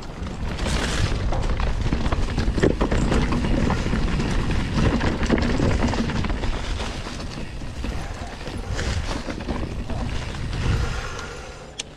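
Mountain bike rolling fast down a leaf-covered dirt trail: low wind rumble buffeting the microphone, with the rattle and crackle of the bike and tyres over the bumpy ground. It eases off near the end.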